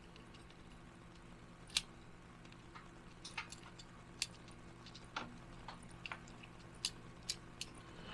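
Faint, irregular clicks and taps of small kit parts and screws being handled and fitted together, over a steady low hum.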